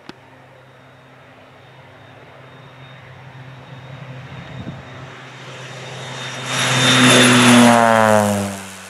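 Air Tractor turboprop crop-dusting plane making a low pass: the engine and propeller noise builds steadily as it approaches, is loudest about seven to eight seconds in as it goes by close, then drops in pitch and fades as it moves away.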